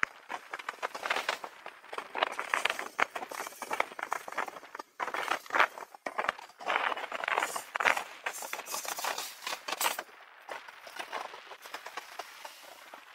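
Irregular rattling and clicking of a bicycle and its fittings jolting over the road while riding. The rattle stops about ten seconds in, leaving a soft steady hiss.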